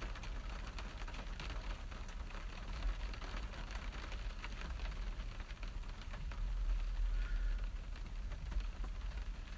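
Rain falling steadily, a dense patter of small drop ticks, over a steady low rumble.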